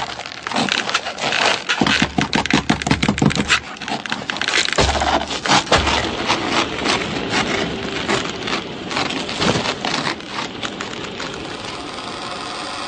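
Knitting needles clicking rapidly and unevenly, with a low hum coming and going in the first half. Near the end the clicking settles into a faster, even ticking.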